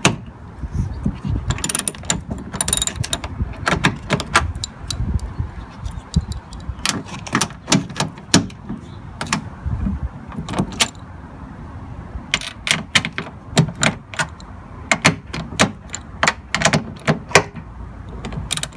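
Ratchet wrench with a 10 mm socket clicking in short irregular runs while loosening the nuts on a car door mirror's mounting bolts, with scraping and knocking of metal tools against the door.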